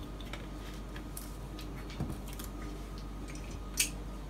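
Small kitchen handling sounds: faint clicks of a plastic cap being closed on a plastic lemon juice bottle, then a sharper knock near the end as the bottle is set down on the countertop.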